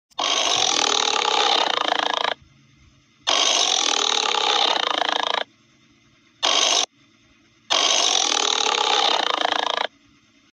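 An animal's loud, harsh calls: three long calls of about two seconds each, with a short one between the second and third.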